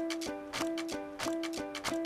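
Background music: a bouncy tune of short repeated notes over a light, even percussive beat.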